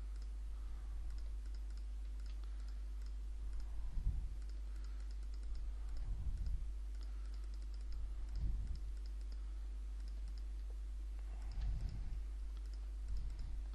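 Scattered computer mouse and keyboard clicks at a desk, with a few soft low thumps, over a steady low hum.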